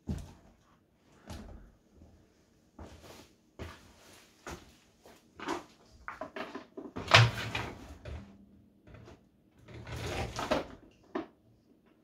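Irregular knocks, bumps and scrapes from a stainless-steel vacuum drum and a Henry vacuum being handled and shifted about on a concrete floor. The loudest knock comes about seven seconds in.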